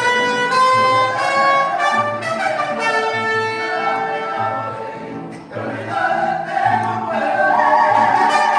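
Loud brass-band music: horns playing held notes over a low bass note that pulses about once a second.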